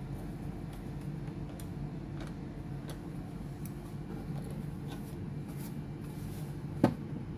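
Small, scattered clicks and taps of hands and tools handling laptop parts, with one sharp click about seven seconds in, over a steady low hum.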